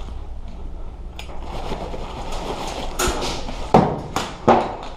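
A few sharp clacks and knocks, the loudest two in the second half, over a steady low rumble.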